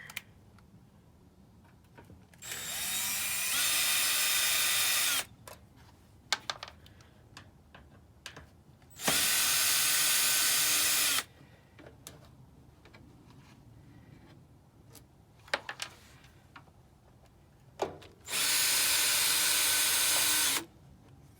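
Power drill running in three bursts of about two to three seconds each, the first winding up as it starts. Small clicks and handling knocks come between the bursts.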